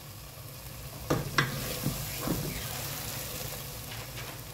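A wooden spoon stirring and scraping a thick flour-and-oil mixture as it fries in an aluminium pot, over a low sizzle. The spoon knocks against the pot about four times in quick succession.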